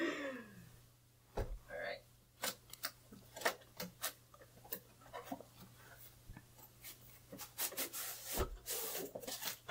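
Cardboard tripod box being handled and opened: rubbing and scraping of cardboard with scattered clicks and knocks. A dull thump comes about a second and a half in, and another near the end.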